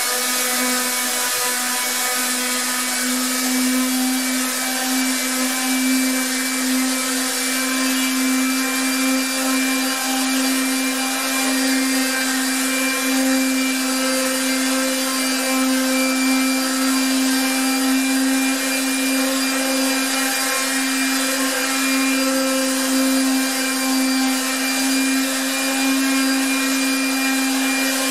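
Corded electric palm sander running steadily, its square pad sanding hardboard (masonite) with 150-grit sandpaper: a constant motor hum over the hiss of the paper on the board. The sanding scuffs the glossy face of the hardboard so paint will adhere.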